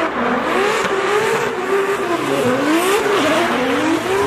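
Drift car sliding past, its engine revving up and down over and over as the throttle is worked, with tyres squealing through the slide.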